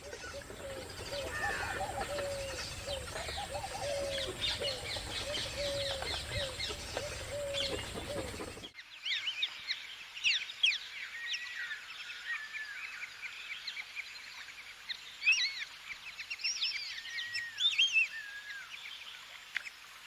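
Birds calling and chirping in two recordings joined by a cut. For the first nine seconds or so, a low call repeats about twice a second, with chirps above it over steady background noise. After an abrupt cut, quicker high chirps and short whistles follow.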